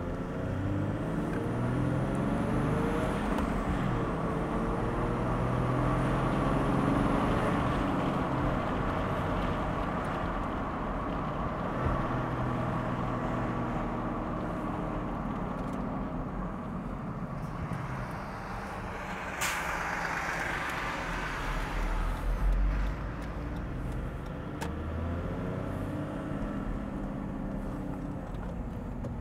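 Toyota Land Cruiser HDJ100's 1HD-FTE straight-six turbo-diesel driving under acceleration, its pitch climbing and dropping back with gear changes, with a faint high turbo whistle. About two-thirds of the way through, a sharp hiss sounds for a couple of seconds.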